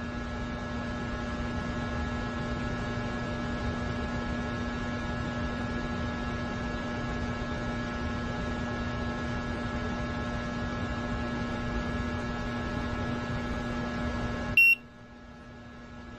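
Steady electrical hum with a low drone, a few fainter high tones and hiss. Near the end it is cut by one short, loud, high-pitched beep, after which a quieter hum slowly swells.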